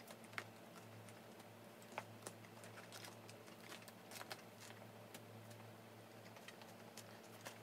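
Near silence with faint scattered clicks and crackles as fried chicken is picked apart by hand and eaten, over a low steady hum.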